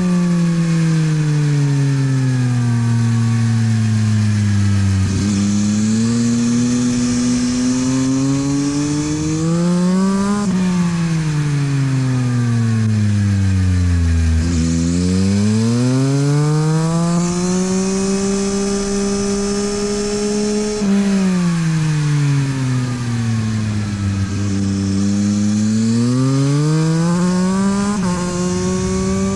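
Yamaha MT-09 SP's inline three-cylinder engine through a LeoVince aftermarket exhaust, ridden hard on track: revs fall under braking and climb again under acceleration several times over, with sudden pitch breaks at the gear changes.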